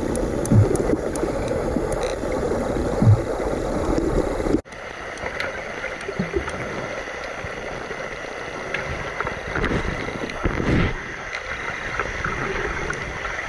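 Underwater ambience from a camera recording under water: a steady muffled rush of water with scattered faint ticks. About four and a half seconds in it drops out for an instant, and after that the rush is thinner and brighter.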